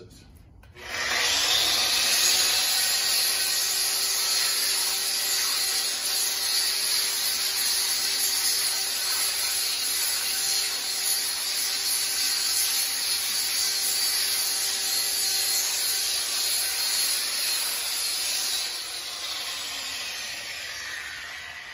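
An electric angle grinder fitted with a narrow 1-inch belt-sander attachment starts up about a second in and sands wet western red cedar with a coarse belt, about 80 grit. It makes a steady abrasive hiss over the motor's steady whine. Near the end it comes off the wood and winds down, its pitch falling.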